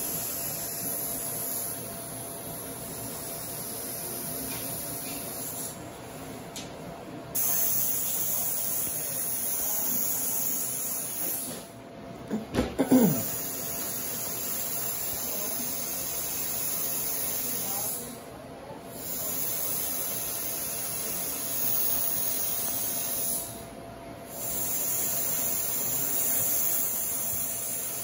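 Dental handpiece spinning a white polishing wheel against a temporary crown held in the fingers: a steady high hiss that stops for a moment and starts again about every six seconds. About halfway through there is a brief louder sound whose pitch falls.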